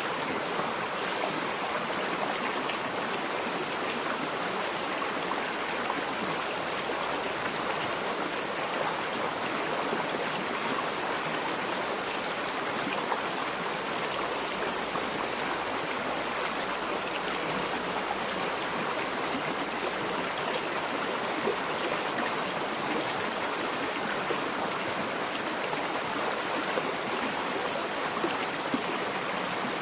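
River water flowing steadily over stones, a continuous rushing with small splashes and gurgles.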